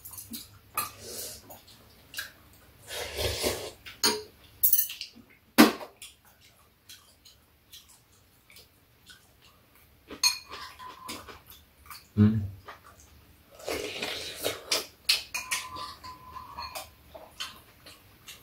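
Close-up eating sounds: chewing and slurping, with chopsticks and spoons clicking against dishes and bowls. One sharp clink, about a third of the way in, is the loudest.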